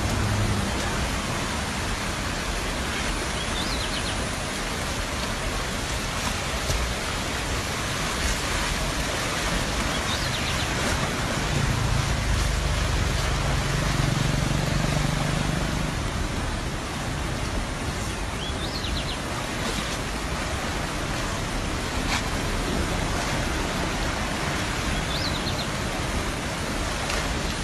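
Muddy floodwater rushing steadily past, a constant dense hiss without breaks. A low hum joins briefly in the middle.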